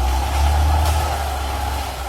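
CAT D6R XL bulldozer's diesel engine running steadily under a low drone, with a steady high whine over it and a faint click about a second in.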